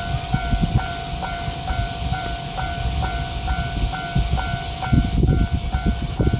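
Japanese railroad crossing warning bell ringing its repeating "kan-kan" at a little over two strokes a second, with an irregular low rumble underneath.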